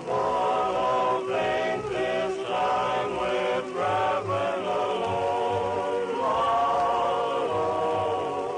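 A vocal group singing together in held, sustained chords that shift every second or so, heard on an old radio broadcast recording.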